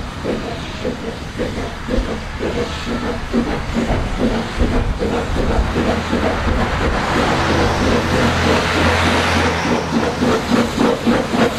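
Double Fairlie narrow-gauge steam locomotive Merddin Emrys pulling away with its train: a steady run of exhaust chuffs over loud hissing steam from its cylinders, growing louder as it approaches.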